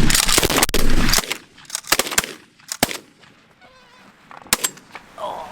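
Loud, dense goose honking that cuts off abruptly about a second in. After it come faint scattered honks, a few sharp knocks, and one more clear honk near the end.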